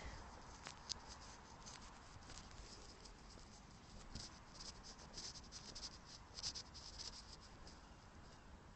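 Near silence with faint, irregular scratching and rustling close to the microphone, thickest in the middle of the stretch.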